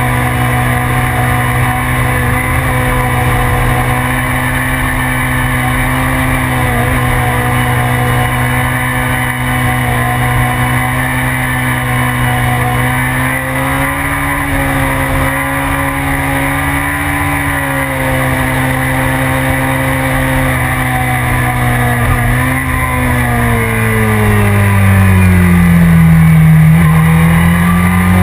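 BMW S1000RR sport bike's inline-four engine heard from onboard, running at high, fairly steady revs with wind rush. Near the end the pitch drops as the rider rolls off the throttle, then climbs again as he gets back on the gas.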